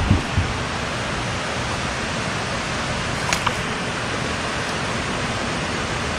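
Steady rush of water pouring from a dam, with a couple of low thumps at the start and a single tick about three seconds in.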